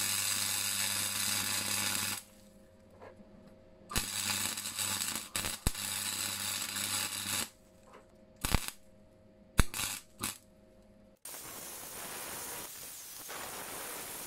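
Wire-feed MIG welder arc crackling and hissing over a low electrical hum, in two runs with a pause between, then a few sharp clicks. About eleven seconds in, an angle grinder takes over, running steadily as it grinds the weld flush on a steel bar.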